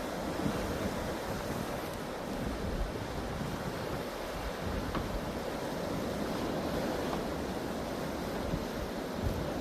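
Sea surf washing onto the shore in a steady, continuous roar, with wind buffeting the microphone.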